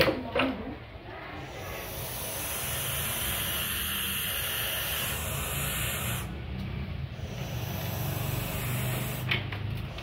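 Barn owlets hissing in long defensive bouts as they are approached, with a short break about six seconds in. A low steady hum runs underneath, and there are a few light knocks at the start and near the end.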